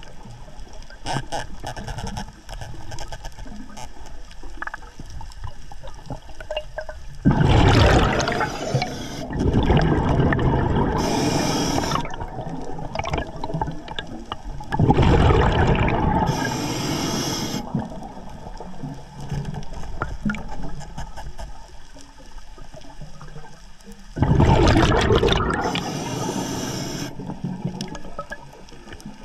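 Scuba diver breathing through an Atomic regulator underwater: loud surges of exhaled bubbles, about eight, fifteen and twenty-four seconds in, several with a high hiss, and faint clicking and bubbling between breaths.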